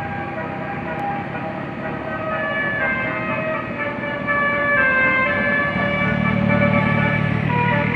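Bus telolet Basuri musical horn playing a tune of short held notes that keep stepping between pitches. A low rumble grows beneath it about six seconds in.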